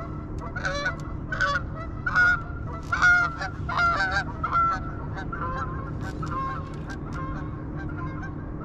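Geese honking, a rapid string of short calls, loudest from about two to five seconds in and fading off after.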